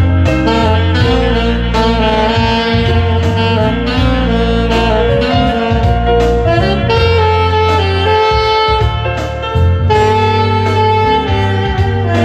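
Saxophone playing a melody of held notes over a backing track with bass and drums.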